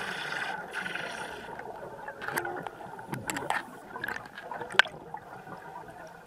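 Underwater sound through a camera housing: muffled gurgling of a diver's air bubbles, with scattered sharp clicks and taps, the loudest a single click about five seconds in.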